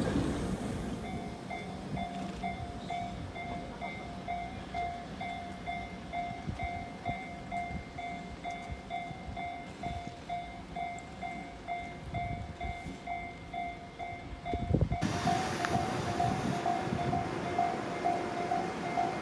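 Japanese railway level crossing alarm ringing steadily, an even electronic ding about two times a second, while a passing train's rumble dies away in the first second. About three-quarters of the way through, wind noise on the microphone joins the ringing.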